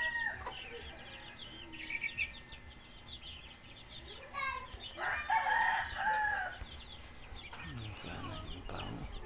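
A rooster crowing once, about five seconds in and lasting about a second and a half, with faint short chirps around it.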